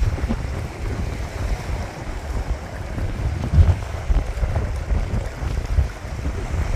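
Wind buffeting the microphone in uneven low gusts, over a steady wash of sea noise.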